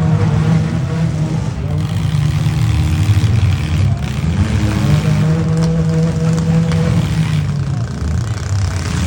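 Several demolition derby cars' engines running and revving at once, their pitch rising and falling.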